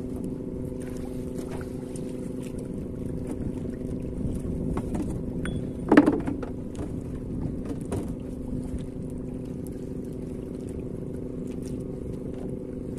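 A boat engine running steadily at idle, a constant low hum. A short, sharp, louder sound cuts in about six seconds in.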